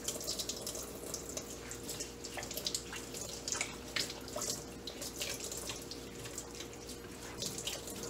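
Kitchen faucet running, its stream splashing unevenly over hands rinsing a foam filter in a stainless steel sink. A faint steady hum sits underneath.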